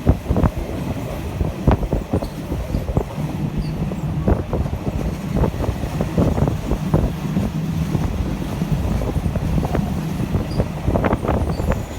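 Passenger train running along the track: a steady low rumble with irregular clacks and knocks from the wheels and carriage, a few louder knocks near the end.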